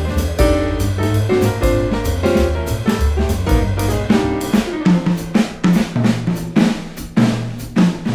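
Jazz combo playing instrumentally: piano chords over a double bass line, then from about halfway the drum kit comes to the fore with a run of quick drum and cymbal hits.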